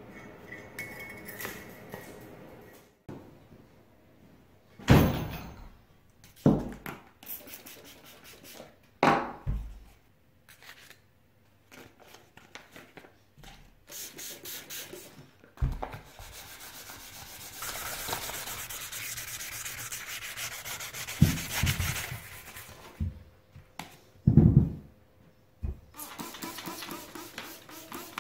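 Hand wet-sanding of a painted wheel cover from a 1950s Ransomes reel mower: abrasive paper rubbing with a steady scratchy sound, the part misted from a spray bottle. Several sharp knocks and thumps of the part being handled come in the first half and again later.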